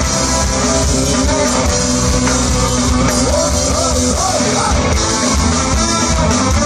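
A live ska band playing through a festival PA, heard from the crowd: electric guitars, drums and horns with a lead singer.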